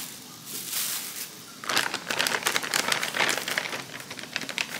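Thin plastic bag crinkling and rustling as it is handled; the crackle turns dense and busy a little under two seconds in.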